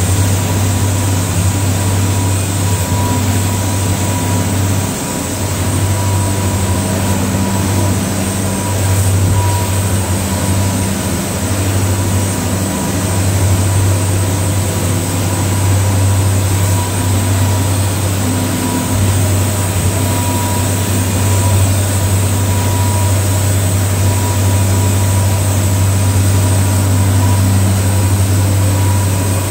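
Twin Caterpillar 3116 inline-six turbo-diesels (350 hp each) of a 32-foot Phoenix boat running at cruising speed: a steady low drone that swells and eases slightly, with a faint steady whine over it and a rush of wind and water.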